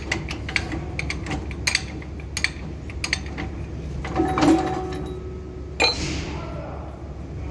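Clicks and clinks of metal on metal from work on the locomotive's brake-shoe rigging, over a steady low hum. A short squeal starts about four seconds in and ends in a sharp clank, followed by a fading hiss.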